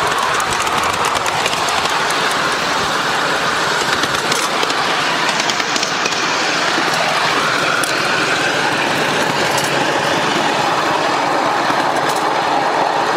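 A 5-inch gauge Polly 5 live-steam locomotive running along the track, its steam exhaust and wheels on the rails making a steady, loud noise close by.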